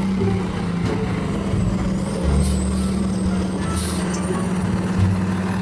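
Heavy truck engine running steadily, a constant low hum under a wide wash of hiss, which cuts off abruptly near the end.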